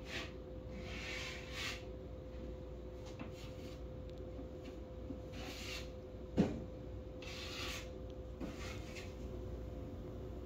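Snow being crunched and scraped in short, irregular rasps, with one sharper brief knock about six seconds in. A faint steady hum runs underneath.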